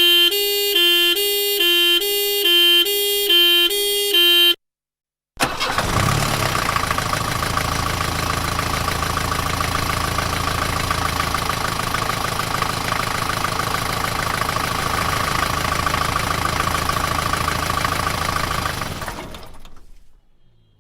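Two-tone hi-lo ambulance siren, the tone alternating between two pitches about twice a second, cuts off after about four and a half seconds. After a short silence a vehicle engine starts and runs steadily, fading out near the end.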